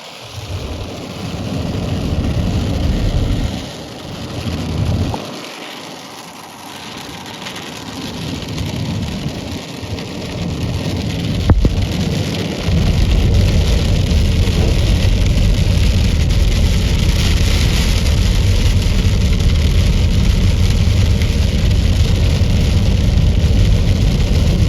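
Hail and heavy rain pelting down in a steady hiss and patter. It grows much louder about halfway through and stays loud until it cuts off suddenly.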